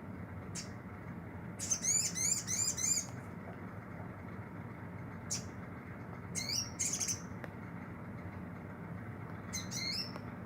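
A sunbird (kolibri madu) singing: single sharp chirps and three bursts of fast, repeated high twittering notes, the first and longest a second and a half long. A steady low hum runs underneath.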